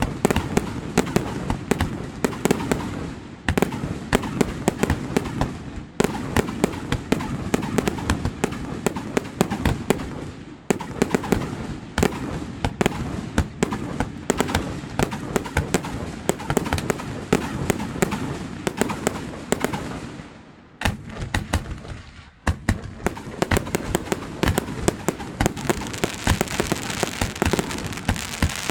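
Fireworks display: a dense, continuous run of bangs and pops, with a brief lull about three-quarters of the way through and a thicker crackling toward the end.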